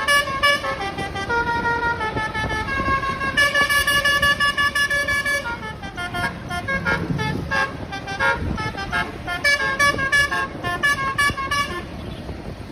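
Telolet bus horn, a set of multi-tone air horns, playing a tune: a quick rising run of notes, then long held chords, then a string of short staccato blasts that stops about a second before the end. A low engine and traffic rumble runs underneath.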